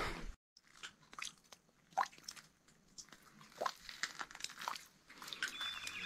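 A few faint, scattered clicks and crunches over a quiet background, then soft music fading in near the end.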